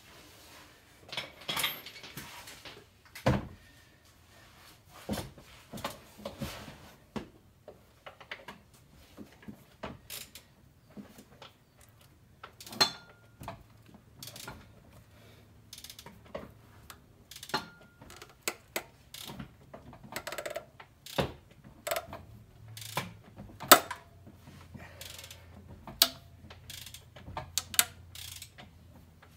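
Irregular clicks and knocks of a ratchet and 18 mm socket turning the crankshaft pulley of a 3.0 L engine by hand, to roll a new stretch belt onto its pulleys. The clicks come more often after the first third.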